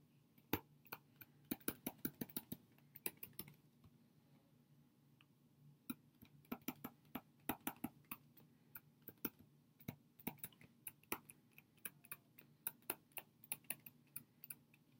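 Faint clicks and taps of a stylus on a tablet screen during handwriting, in quick irregular clusters, with a pause of about two seconds roughly four seconds in.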